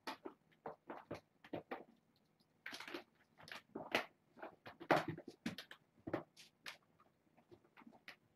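Kittens playing on carpet and cat toys: irregular scratches, scuffles and light clicks, with a couple of longer scrabbling rustles a few seconds in.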